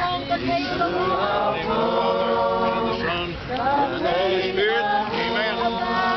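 A group of people singing a hymn together, many voices at once.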